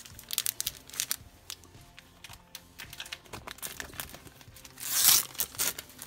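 Gloved hands crinkling the plastic wrapper of a hockey card pack and tearing it open, with a series of sharp crackles and one loud rip about five seconds in.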